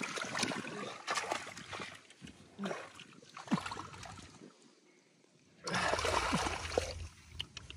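Water splashing and trickling in irregular bursts from hands working in water while fishing by hand for catfish. It dies away to near quiet about halfway through, then comes back as a louder stretch of splashing with a low rumble.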